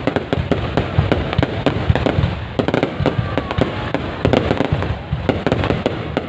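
Fireworks display going off continuously: a dense, irregular crackle of many sharp bangs and pops over a deep, rolling rumble of booming shells.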